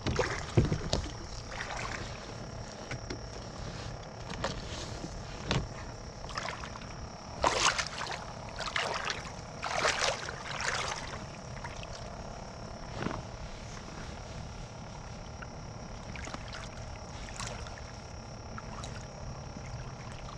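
Brief knocks and rustles of someone moving and handling gear right beside a kayak-mounted camera, loudest in a cluster of rustling from about eight to eleven seconds in, over a steady faint high tone and quiet outdoor background.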